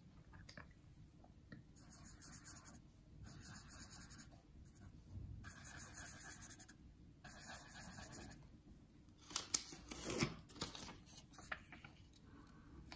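Red marker pen scratching on a paper square as four dots are drawn: faint scratchy strokes in four short spells, then a few sharp taps and knocks as the pen and paper are set down on the wooden table.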